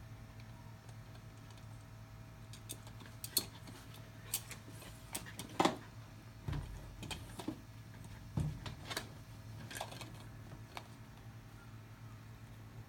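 Irregular plastic clicks and taps, with a couple of dull thumps, as a Cairn terrier chews and noses a GoBone plastic dog toy around on carpet.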